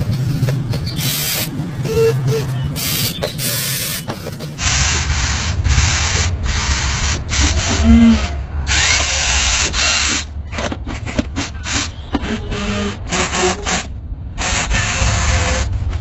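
Remote-control toy excavator (Volvo model) whirring in short on-off bursts from its small electric motors as its bucket scrapes and scoops sand.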